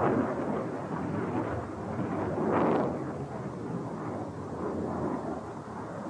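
Fighter jet's engines heard in flight: a rough, rumbling noise that swells and fades, loudest about two and a half seconds in.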